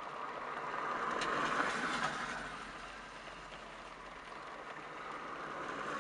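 Distant jet engine roar of a Boeing 777 climbing away, a rushing noise that swells to its loudest about a second and a half in, eases off, then builds again near the end.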